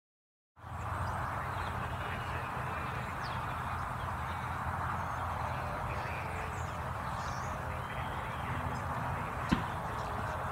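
Steady outdoor background noise with faint bird chirps over it, cutting in half a second after silence; a single sharp tap stands out near the end.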